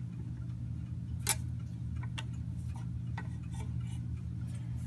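Clock ticking about once a second over a steady low hum, with light clicks as a brass clock movement plate is lifted out of the clamps of a drill-press bushing tool.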